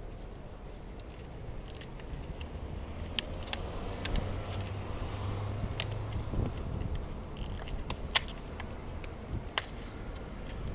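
Hands opening and handling part of a gate barrier's control unit: scattered sharp clicks with light scraping and rattling, over a low steady hum.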